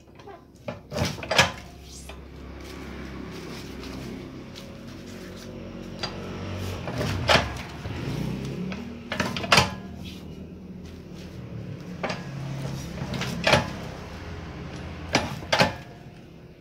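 Sharp knocks every second or two, about nine in all, over a low hum that grows louder in the middle.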